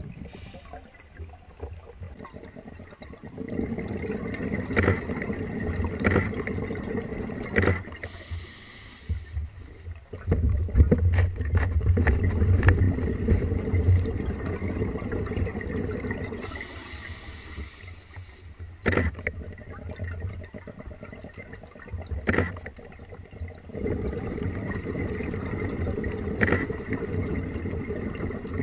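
A scuba diver breathing through a regulator, heard underwater through the camera housing: long bubbling exhalations as low rumbling stretches, short hissing inhalations between them, and scattered sharp clicks.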